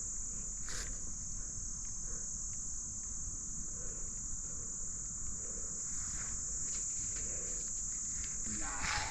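Steady high-pitched insect buzz, unbroken throughout, with a brief louder sound just before the end.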